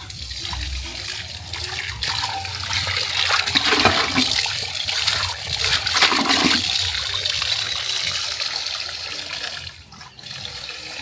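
Water from an outdoor tap splashing into an aluminium pot as it is rinsed, then pouring off the pot into a plastic bucket below. The rush is loudest in the middle and eases off near the end.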